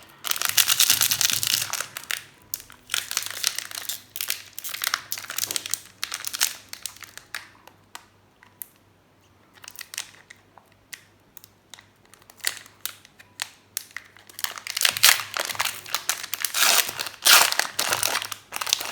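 Plastic-foil wrapper of a Magic: The Gathering Commander Legends draft booster pack crinkling and tearing as the pack is opened by hand. It comes in bursts, loud near the start and again near the end, with a quieter stretch in the middle.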